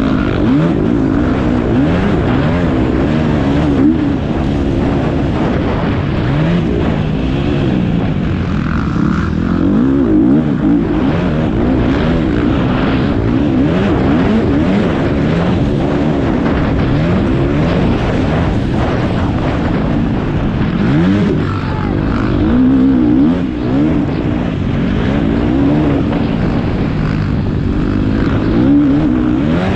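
Motocross bike engine heard from on board, revving up and dropping back over and over as the rider accelerates and shifts round the track.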